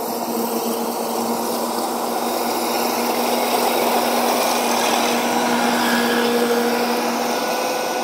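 Rice combine harvester running while harvesting, its engine and threshing gear making a steady drone with a constant hum. It grows a little louder as the machine passes close by.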